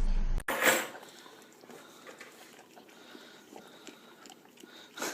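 A dog licking and biting at ice cream: faint wet smacks and small clicks. A brief loud noise near the start cuts off abruptly.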